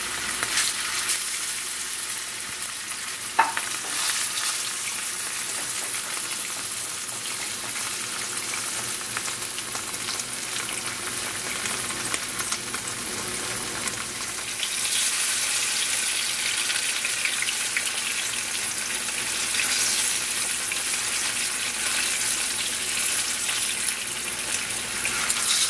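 Sweet plantain pieces sizzling as they shallow-fry in hot oil in a pan, a steady hiss that grows louder a little past halfway.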